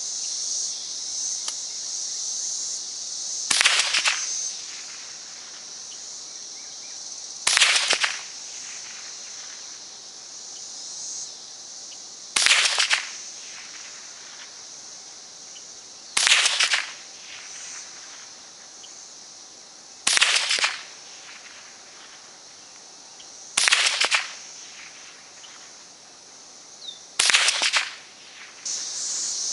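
Seven single shots from a .22 semi-automatic rifle, fired one at a time about every four seconds in slow aimed fire, each a sharp crack with a short echo. Insects keep up a steady high buzz throughout.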